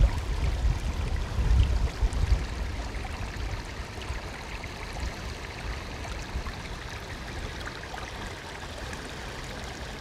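Shallow seawater trickling and babbling over beach rocks and pebbles, a steady wash. A low rumble of wind on the microphone sits under it for the first two or three seconds.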